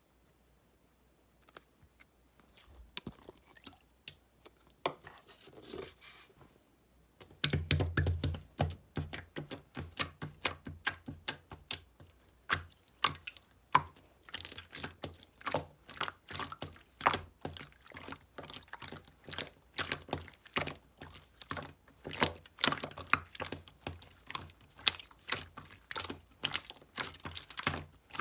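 Clear slime with beads mixed in being squished and worked, making quick irregular clicks and sticky pops. The first several seconds are faint, and from about seven seconds in the clicking is dense and continuous.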